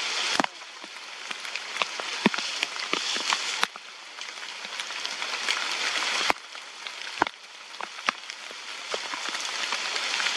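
Rain falling steadily, with many single drops tapping sharply close to the microphone.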